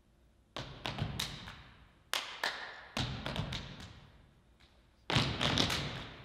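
Drum strikes in a loose, irregular pattern, each ringing out in the hall: single hits and short groups with pauses between, then a quick flurry of strikes about five seconds in.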